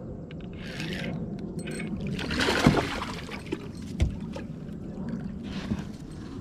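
Water splashing in short spells beside the kayak as a hooked bass is played at the side, with two sharp knocks, about two and a half and four seconds in.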